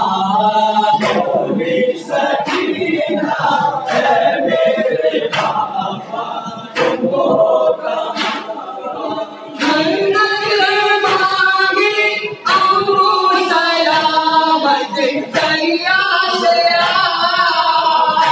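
Men chanting a noha, a Shia lament, with no instruments: lead voices at a microphone joined by a chorus of mourners. A steady beat of sharp strikes, about one a second, runs under the chant; these are typical of matam, the mourners' rhythmic chest-beating.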